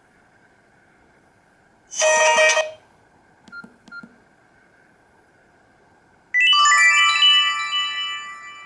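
Nokia E66 ringtones playing in turn. About two seconds in comes a short bright chime, then two faint blips. About six seconds in a bright chime of several notes starts, its notes coming in one after another, ringing on and fading away.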